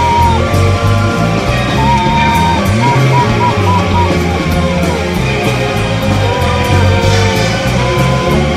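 Rock music with a steady beat, bass and a melody line.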